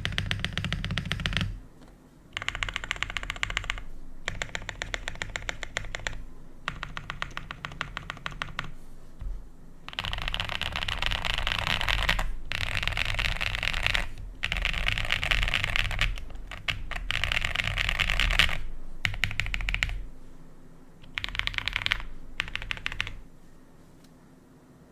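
QK65 custom mechanical keyboard with Cobalt POM switches on a POM plate and Aifei keycaps, foam-dampened, typed on fast in bursts of a few seconds with short pauses between them. The keystrokes give the deep, muted sound its owner calls thock. The typing dies away just before the end.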